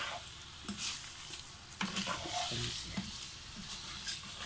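Wooden spoon stirring raw mango slices and sugar in a nonstick pan, a few irregular scraping strokes over a steady soft sizzle from the heating pan.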